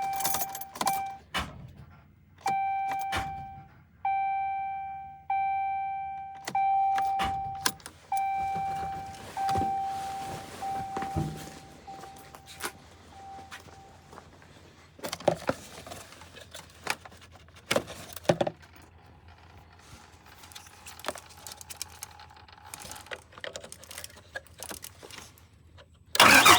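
Ram pickup's dashboard warning chime sounding repeatedly, about once a second, fading out after some fourteen seconds, followed by keys jangling and scattered clicks. The engine starts just before the end.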